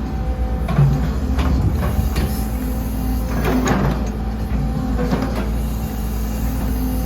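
Sumitomo SH120LC-6 excavator running, its diesel engine a steady low drone with a hydraulic tone that comes and goes. Several clanks and creaks are heard as the machine works.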